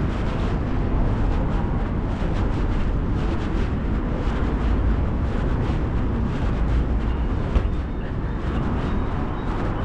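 City street ambience: steady traffic noise with a low rumble, without a single vehicle standing out.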